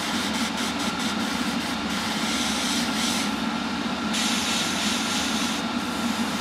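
Spray booth extractor fan running with a steady hum. Over it, a Harder & Steenbeck Evolution airbrush running at 25 PSI hisses in bursts as paint is sprayed: once about two seconds in, and again for about a second and a half from about four seconds in.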